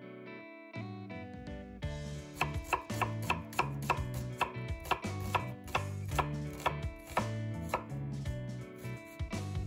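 Chef's knife dicing an onion on a cutting board: quick, even chopping strokes, about two to three a second, starting about two seconds in, over background music.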